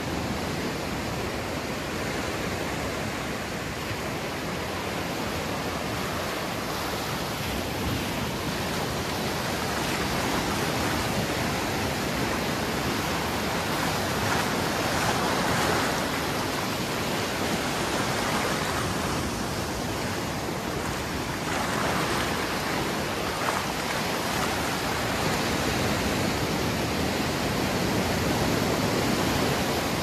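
Small ocean waves breaking and washing up a sandy beach, a steady rushing surf that swells as each wave comes in.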